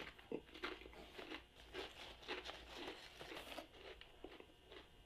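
Potato chips crunching as they are chewed, a run of faint, crisp crackles, with the plastic chip bag crinkling as a hand reaches into it about three seconds in.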